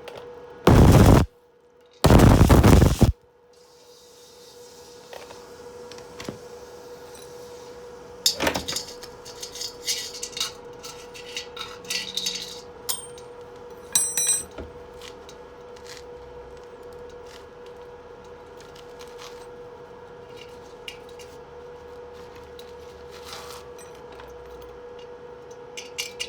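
Arc welding on the thin steel of an old water-heater tank: two short bursts of loud welding crackle, one about a second in and a longer one about two seconds in. Then light metallic clinks and taps over a steady hum.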